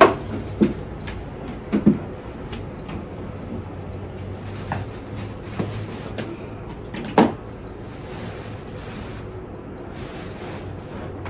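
Shatterproof Christmas ornaments knocking and clattering as they are handled and fall through the tree's branches. There are several separate knocks, a quick pair near two seconds in, and the loudest about seven seconds in.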